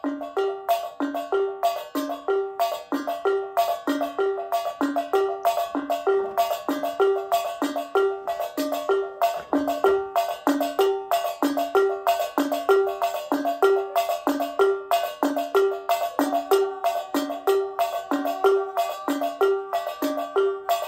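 Tuned percussion played as a steady, fast ostinato: a short repeating figure of a few bright struck notes that loops about twice a second.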